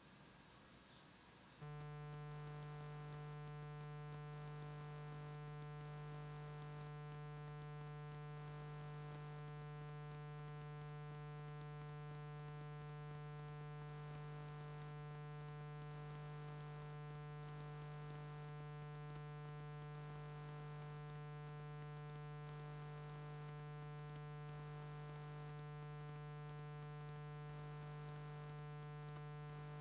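Steady electrical mains-type hum, buzzy with many overtones, that switches on about a second and a half in and holds unchanged.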